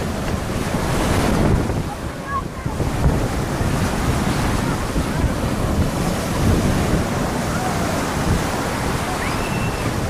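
Sea waves washing onto the shore, with strong wind buffeting the microphone in uneven gusts.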